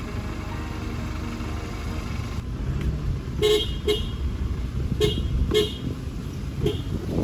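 A car horn tooting five short beeps, in two quick pairs and then one more, over the steady low rumble of a pickup's engine heard from inside the cab as it pulls away.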